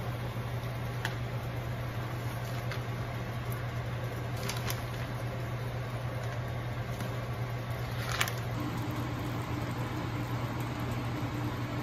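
Steady low hum of a kitchen fan running, with a few light clicks of a spoon and pot lid against a metal saucepan.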